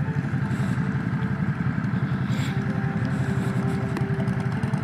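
Motorcycle engine running steadily with a rapid, even pulse.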